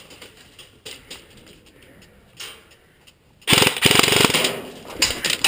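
Airsoft electric rifle firing full auto: a loud, rapid rattle of shots that starts about three and a half seconds in, breaks off briefly, then runs on in a second long burst.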